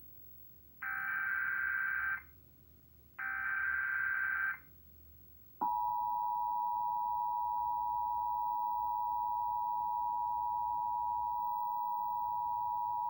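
Emergency Alert System test tones on TV: two short bursts of the digital SAME header data, each about a second and a half, then about five and a half seconds in the steady two-tone EAS attention signal (853 and 960 Hz) starts and holds. The header bursts encode the alert; the attention tone marks that an alert message follows.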